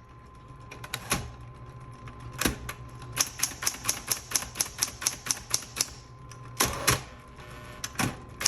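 Smith Corona Coronet Automatic 12 electric typewriter keys striking as all the keys are tested: a couple of single strokes, then a quick run of about four a second, then a few heavier strikes near the end. Underneath is the steady hum of its running motor.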